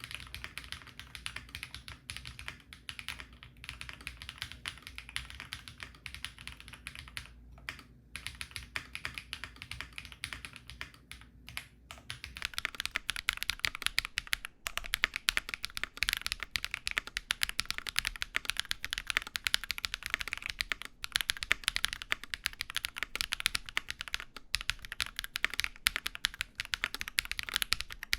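Typing on a custom mechanical keyboard with an aluminium plate and BSUN Bunny linear switches (short-travel, early bottom-out, PC top housing, PA bottom housing, LY stem): a continuous clatter of keystrokes that grows faster and louder about twelve seconds in.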